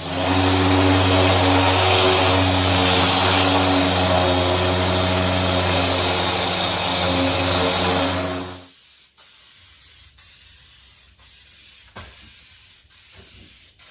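Powered paint sprayer spraying a coating for sandblasted and rusted metal: a steady spray hiss over a motor hum. It stops about eight and a half seconds in, leaving low sound with a few faint clicks.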